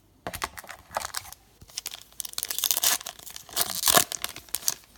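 Foil trading-card pack wrapper being torn open and crinkled by hand, in irregular rustling bursts, loudest in the middle and again about four seconds in.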